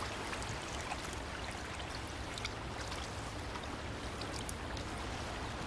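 Steady wash of shallow water on a shingle beach, with a few faint light ticks over it.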